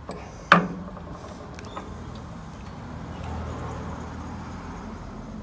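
A single sharp knock with a brief ring about half a second in, during handling of the relay and test leads, then a low motor-vehicle rumble that swells through the second half.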